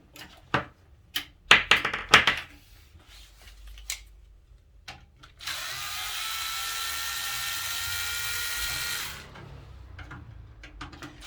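A few clicks and knocks of handling parts of a PC case, then an electric screwdriver runs steadily for about four seconds and stops suddenly, backing out the power supply's mounting screws.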